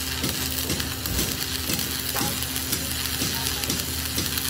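Electric arc welding on steel, a steady crackling hiss with a low hum underneath and faint regular ticks about four times a second.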